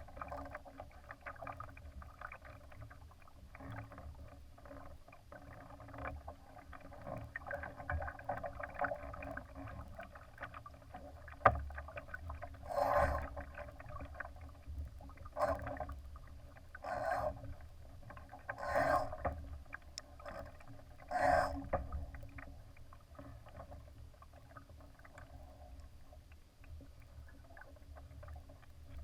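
Water rushing and lapping against the hull of a Laser sailing dinghy under way. There is a sharp knock about eleven seconds in, then five louder splashes spread over the next ten seconds.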